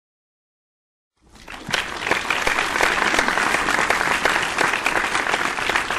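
Crowd applause: many hands clapping together, starting about a second in after silence and going on steadily.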